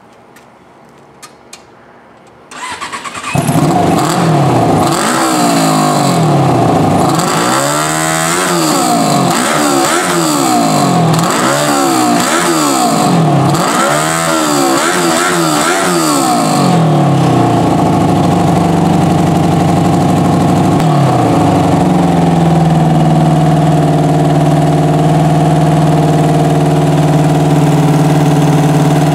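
Hot-rod lawn tractor's engine starting after a short crank, then revved up and down repeatedly, about seven times, before settling to a steady idle.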